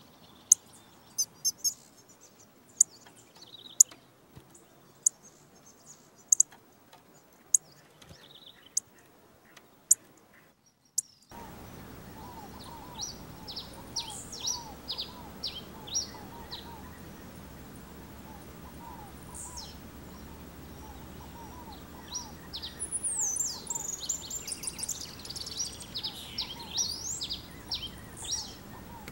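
Pileated finch calling and singing: sharp, very high single chips about once a second at first. After a change of recording, a quick run of high down-slurred notes, then a busier twittering song near the end over a fainter, lower repeated chirp.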